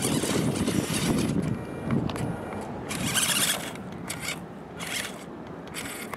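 Small RC rock crawler's electric motor and gearbox whining in short stop-start bursts of throttle, its rubber tyres scrabbling over loose dirt and twigs.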